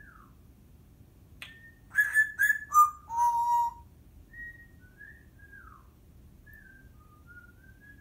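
Timneh African grey parrot whistling a string of short notes, several gliding downward. About two seconds in comes a louder run of sharp clicks and whistled notes, after which softer single whistles carry on.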